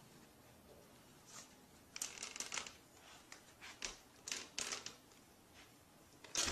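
Faint, irregular short clicks and rustles, a few at a time, clustered from about two seconds in, over quiet room tone.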